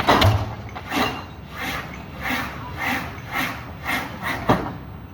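Excavator knocking concrete piles down into a riverbank: a series of about eight heavy knocks, coming closer together toward the end.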